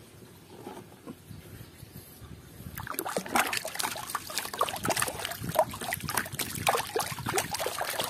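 Muddy water sloshing and splashing in a plastic tub as a hand swirls through it, starting about three seconds in with dense, irregular splashes and drips.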